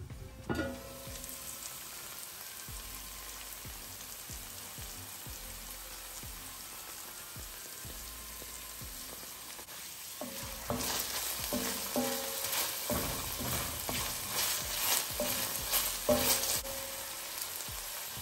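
Sliced onion, sweet peppers, thyme and scallion sizzling in oil in a pan, a steady hiss that grows louder from about ten seconds in, with clicks and crackles.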